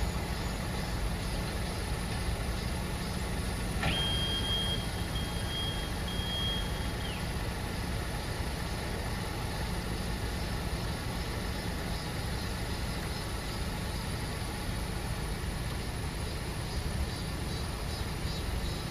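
Diesel engine of a Hyundai light-duty truck idling steadily. About four seconds in, a click is followed by a high steady beep that lasts about three seconds.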